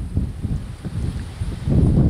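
Wind buffeting the microphone: an uneven, gusty low rumble that swells near the end.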